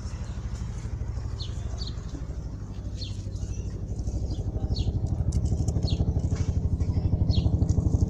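A small engine running with a rapid, even pulsing beat that grows louder about four seconds in. Birds chirp short calls over it.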